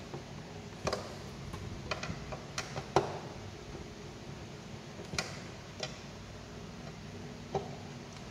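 Irregular light clicks and taps of hands fitting wires into the screw terminals of a three-phase circuit breaker and contactor, about seven in all, the loudest about three seconds in.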